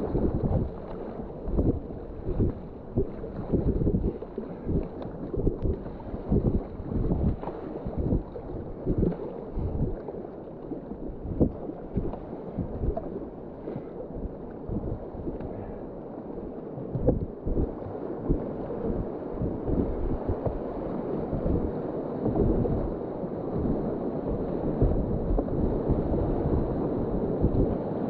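River whitewater rushing and splashing around a kayak on the run, with wind buffeting the microphone in irregular low thumps.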